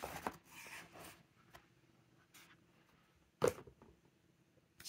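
Soft rustling and sliding of a paper-covered notebook and cardboard as it is lifted out of a cardboard mailer box, with small clicks, then one sharp tap about three and a half seconds in.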